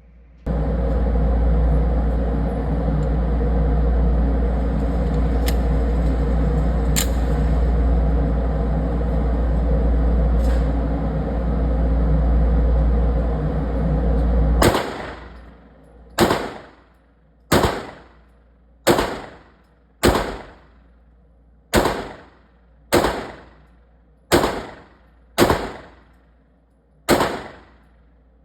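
A steady loud rushing noise with a deep rumble for about the first half. It then gives way to handgun shots fired one at a time at a steady pace, about one every second and a quarter, eleven shots in all, each ringing out briefly.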